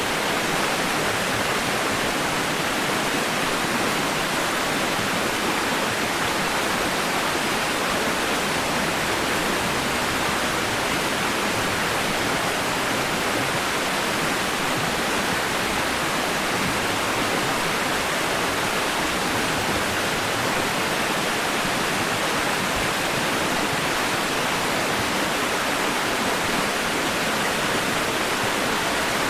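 Steady white-noise hiss for soothing a baby to sleep, even and unchanging, strongest in the middle and upper range with little bass.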